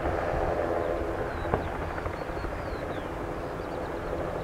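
RAF Westland Sea King helicopter in flight: its twin Gnome turboshaft engines and rotor make a steady hum over a low rumble. A single sharp click comes about a second and a half in.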